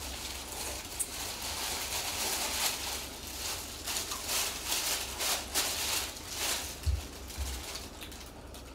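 Jjamppong noodles being slurped and chewed close to the microphone, mixed with a plastic bag rustling in an irregular run of short crackly strokes.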